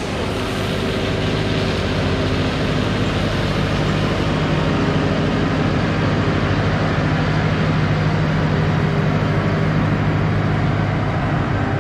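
Farm tractor engine running steadily as the tractor drives along the road and passes close by, its hum growing louder over the first few seconds as it nears.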